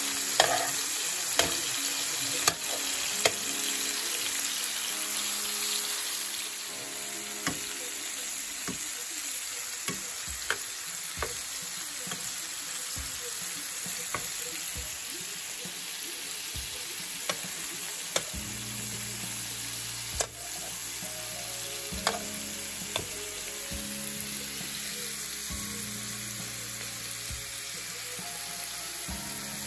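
Shrimp frying in butter and olive oil in a pan, a steady sizzle. Metal tongs click against the pan several times in the first few seconds and now and then after.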